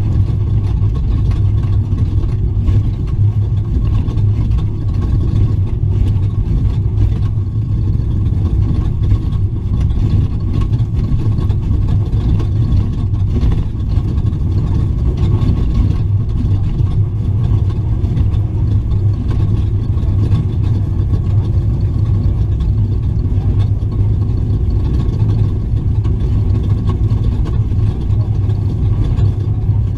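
Engine of a Raptor desert race truck running steadily at a constant loud level, a low drone heard from inside the truck during an off-road race lap.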